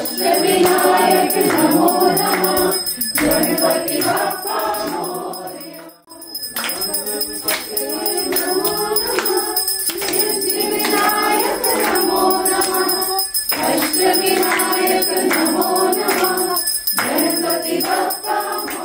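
Hindu devotional singing, a group voice in phrases of a few seconds, with a bell ringing throughout, as during aarti.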